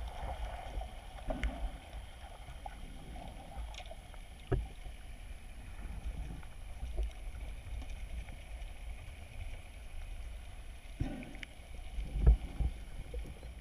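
Muffled underwater sound picked up by a GoPro: a steady low rumble of moving water with a few sharp clicks and knocks, the loudest a thump near the end, over a faint steady high whine.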